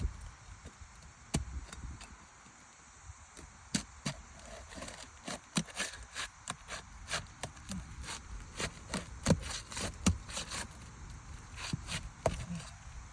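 Asphalt roof shingles being pried up and unsealed by hand and tool: a string of irregular sharp clicks, snaps and scrapes as the sealed tabs break loose.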